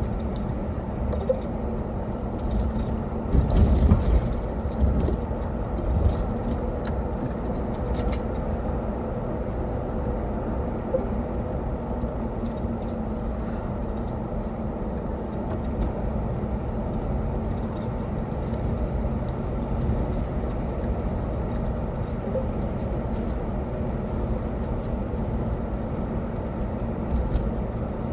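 A car being driven at a steady speed: continuous road and engine rumble with a faint steady hum, and a few bumps about three to four seconds in.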